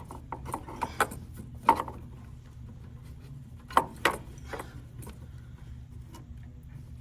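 Scattered clicks and knocks of metal parts being handled as a furnace limit switch is worked loose, four of them sharper than the rest, over a steady low hum.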